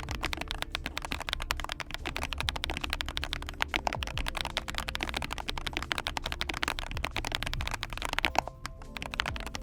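Fast, continuous typing on a mechanical keyboard with fully lubed FEKER Matcha Pro tactile switches and PBT keycaps: dense key clacks with a brief pause near the end.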